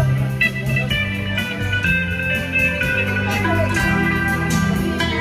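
Electric lead guitar playing a slow instrumental melody in long sustained notes, over a bass line and light drums.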